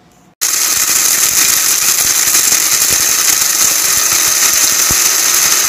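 Personal bullet-style blender switching on suddenly about half a second in and running with a loud, steady whir as its blades grind hard, dried whole corn kernels and dry dog food kibble into coarse meal.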